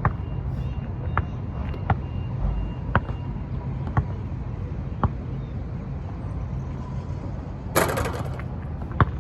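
A basketball bounced on an outdoor court, sharp knocks about once a second, over steady wind rumble on the microphone. Near the end comes a brief, louder clatter.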